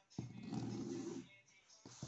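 Steel scissors scraping across a sheet of woven-backed napa vinyl for about a second to show the material resists them, followed by a short click near the end.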